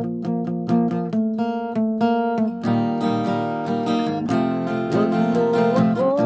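Acoustic guitar strummed in a steady rhythm, one chord ringing into the next.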